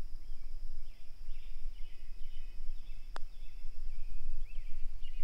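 A putter strikes a golf ball once: a single sharp click about three seconds in. Birds chirp throughout, over a steady high-pitched tone and a constant low rumble.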